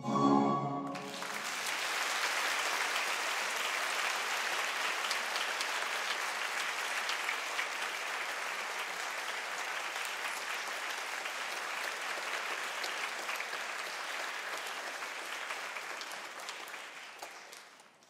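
Orchestral music ends on a final chord about a second in, and a theatre audience breaks into steady applause that fades away near the end.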